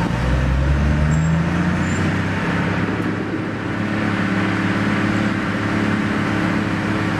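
A car's engine and road noise heard from inside the moving car, the engine note holding steady.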